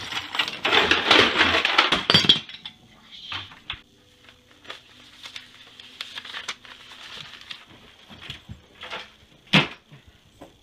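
Small hard objects clattering and rattling as a wooden case is tipped out onto a carpet, for about two and a half seconds; then quieter scattered knocks and rustles of the items being handled, with one sharp click near the end.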